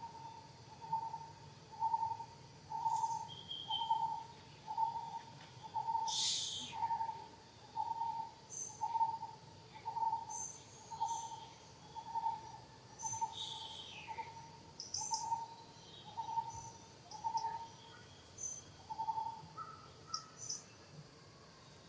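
A bird giving a long series of short hoots on one steady pitch, about one a second, stopping shortly before the end. Other birds' high chirps are scattered over it, with two louder high calls.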